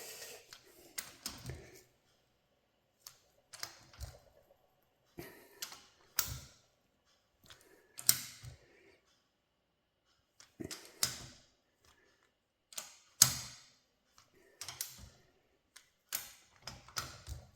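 Scattered sharp metal clicks and knocks of hand tools and pump parts being worked on during assembly of a hydraulic pump, about one every second or two with short quiet gaps between.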